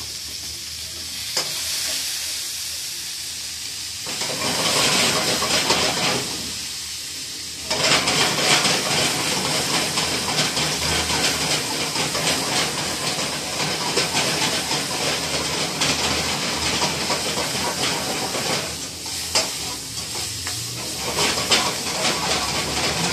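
Food sizzling in a hot wok over a gas burner, stirred with a metal ladle. The frying grows loud about four seconds in, and from about eight seconds the wok flares up in flames with a loud, dense sizzle for some ten seconds before easing, with sharp ladle knocks near the end.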